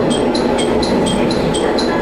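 Diesel railcar running along the line, with a steady rumble and engine tone. Over it a bright ding repeats about four times a second.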